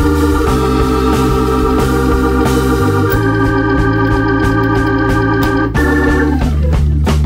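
Background music: held chords over a pulsing bass line, the harmony changing every few seconds.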